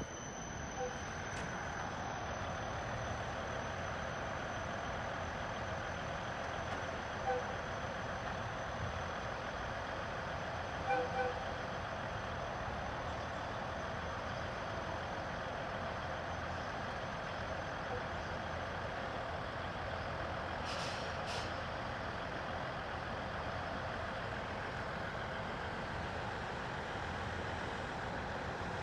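Steady running hum and rumble of trains standing in a railway station, with a few short beeps about a quarter and a third of the way in and two brief hisses of air about three-quarters through.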